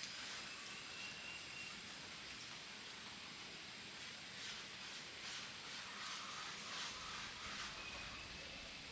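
Faint outdoor ambience: a steady high hiss, with soft rustles about once a second in the second half.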